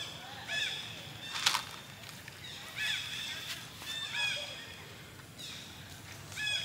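Bird calls: short, high, arched chirping notes that come in several quick groups. A single sharp click sounds about one and a half seconds in.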